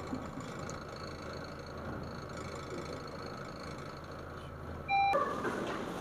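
Mitsubishi Electric passenger lift running upward with a steady low hum. About five seconds in, a short electronic arrival chime sounds, then louder hall noise comes in as the doors open.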